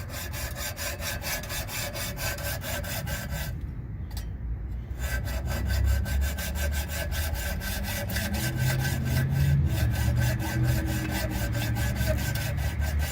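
A saw cutting through a steel car exhaust pipe in a steady back-and-forth rhythm, with a brief break about four seconds in.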